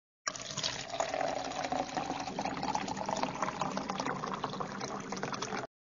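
Running water with a crackly splashing texture, which starts suddenly a moment in and cuts off abruptly near the end.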